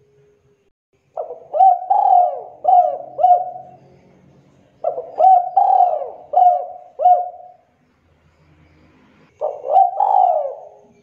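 Spotted dove cooing in the two-'kuk' call style: three phrases of several quick coos each, the last one shorter, with pauses between them.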